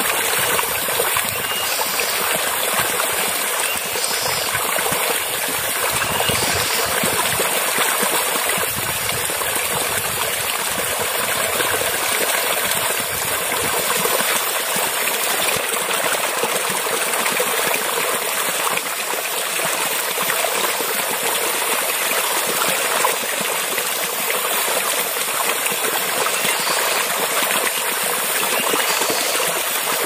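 Small, shallow forest stream running over stones and leaf litter: a steady babble of flowing water.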